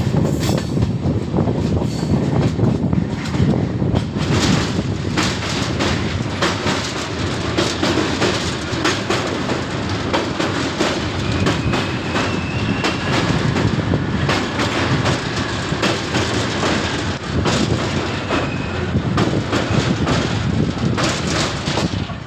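Passenger express train running: a steady rail rumble with wheels clattering over rail joints, and a faint high squeal about halfway through.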